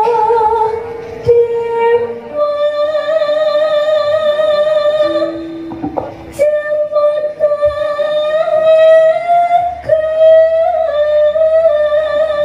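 A Javanese sinden (female gamelan singer) singing through a microphone, drawing out long held notes with a wavering vibrato, over light instrumental accompaniment.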